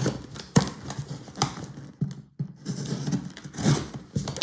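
A postal parcel's packaging being cut and pulled open by hand: rustling and scraping with several sharp, uneven clicks and knocks.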